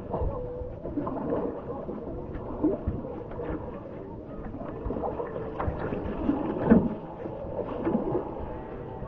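Double-bladed kayak paddle dipping and pulling through the water beside a clear-hulled crystal kayak, with splashing and dripping at each stroke, about one stroke every second or two.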